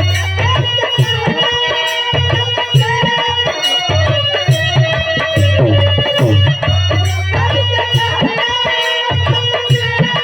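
Instrumental Indian folk music: a hand-drum beat under a gliding melody line, with sustained tones above it.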